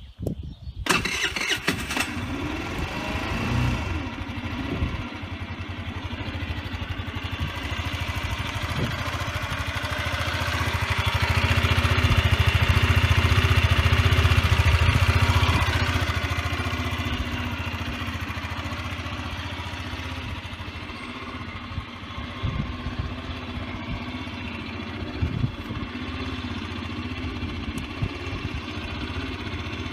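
Baotian X 50 cc four-stroke scooter engine started on the starter: a brief crank, then it catches within about two seconds and runs on at a steady idle. It is louder for a few seconds midway.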